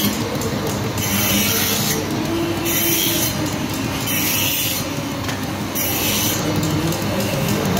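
Slate-grinding machine running with a steady hum, while slate is pressed against the abrasive surface, giving a hissing scrape that swells and fades about every second and a half.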